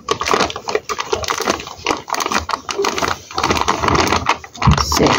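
Clear plastic flour bag crinkling and crackling as it is squeezed and tipped to pour flour into a metal mixing bowl, with a low thump near the end.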